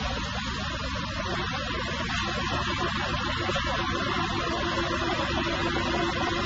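Huron KU6 knee-type milling machine running with a steady hum and hiss. A faint whine comes in about two and a half seconds in and fades about five seconds in.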